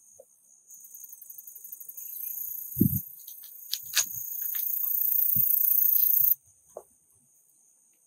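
High-pitched insect buzzing that swells steadily and then stops abruptly about six seconds in, with a few soft thumps and clicks.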